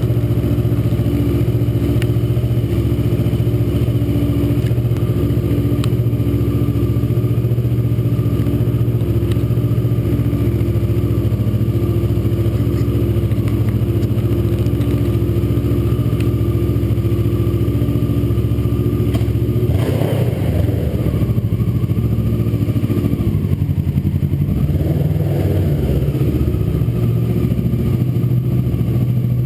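Kawasaki ER-6n parallel-twin motorcycle engine with an aftermarket WR exhaust idling steadily, then, about twenty seconds in, pulling away and running at low speed, the sound changing as it moves off, echoing in an underground parking garage.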